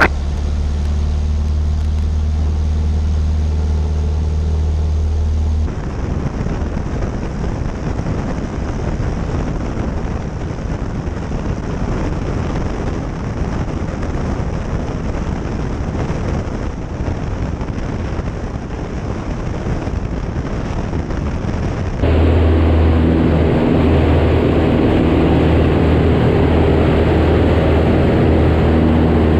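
Cessna 152's four-cylinder Lycoming engine and propeller droning steadily in flight, an even hum with a steady low tone. About six seconds in the sound switches abruptly to a rougher, rushing noise with a weaker tone, and about three-quarters of the way through it switches back to a louder, deeper drone.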